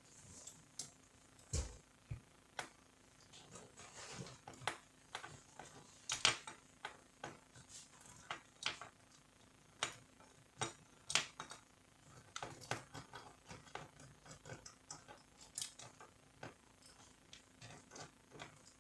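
Irregular light clicks and small knocks of plastic and metal parts being handled as a Canon iR2016/iR2018 copier fuser unit is taken apart by hand.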